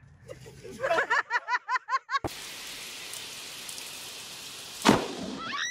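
A quick run of high-pitched laughter, then steady rain that starts abruptly, with one sharp, loud thunderclap near the end.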